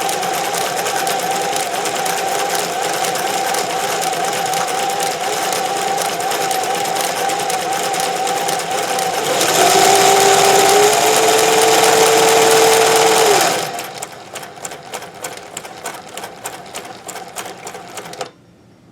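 Singer 411G sewing machine, driven by a motor through a custom belt reducer, running at speed with a steady whine. About nine seconds in it speeds up and gets louder, its pitch rising. After about fourteen seconds it drops to a slow, even ticking of single stitches, and stops near the end.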